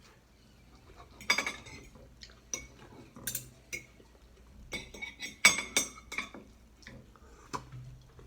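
Fork clinking and scraping against a plate while food is cut and picked up: a string of sharp, irregular clinks with a brief ring, the loudest about halfway through.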